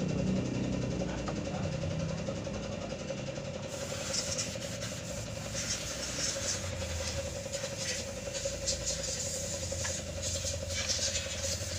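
A steady mechanical hum runs throughout. From a few seconds in, there are many light clicks and taps of handling.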